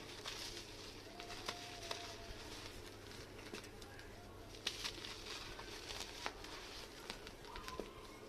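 Red sand floor crumbling, a scattering of short crunches and crackles every second or so, with faint bird calls in the background.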